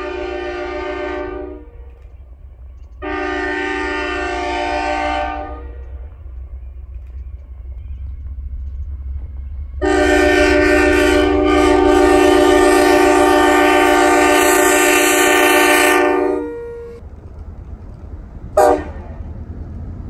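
Diesel locomotive air horn sounding a series of blasts: one ending about a second and a half in, another of about two and a half seconds, then a long one of about six seconds, and a brief toot near the end. A steady low rumble runs underneath.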